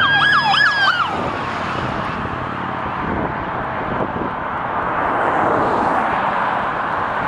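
Police car siren yelping in rapid up-and-down sweeps, cutting off about a second in. Then the steady rush of traffic on a multi-lane road, a little louder around five to six seconds in.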